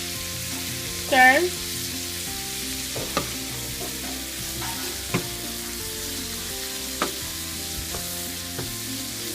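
Shrimp and green beans sizzling in a hot pan while being stirred, with a steady frying hiss. The stirring utensil knocks against the pan a few times, about every two seconds.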